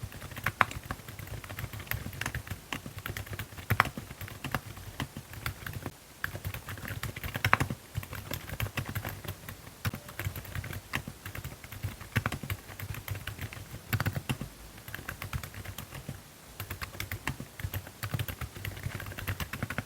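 Keychron Q10 Pro Max gasket-mounted, foam-filled aluminium keyboard with Keychron Silent Banana switches being typed on continuously, a steady run of keystrokes with a few louder key strikes now and then.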